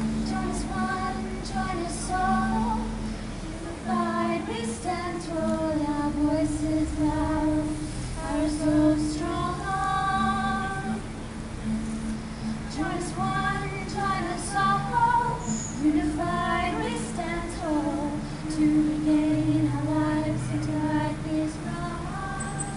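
Two women singing with a strummed acoustic guitar beneath them, the voices holding long notes.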